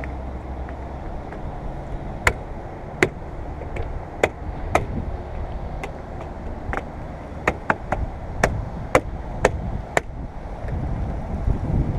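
Sharp clicks and taps from handwork on the windshield molding clips and pins, about eleven irregularly spaced over several seconds. A steady low rumble runs beneath them.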